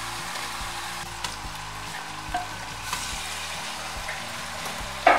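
Chunks of meat sizzling in hot oil and onions in a stainless steel pot: a steady frying hiss, with a few faint knocks as more pieces go into the pot.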